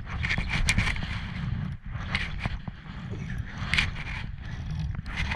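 Steady low rumble of wind on the microphone, with irregular scrapes and clicks of fishing gear being handled on a boat.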